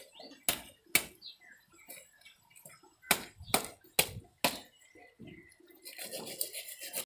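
A big knife scraping scales off a large fish in six sharp, crisp strokes: two near the start, then four about half a second apart in the middle. Rougher, continuous scraping follows near the end.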